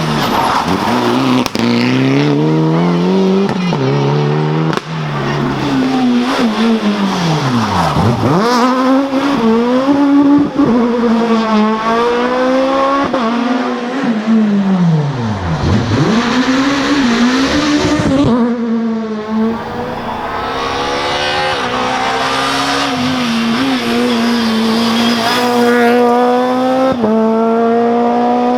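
Rally car engine revving hard through the gears, its pitch climbing in repeated steps with quick drops at each shift. The revs fall away sharply twice, about a third and halfway through, then climb again. Near the end the engine is held at a steady pitch.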